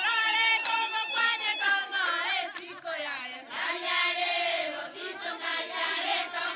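A crowd of people singing and chanting together, many voices overlapping and gliding in pitch.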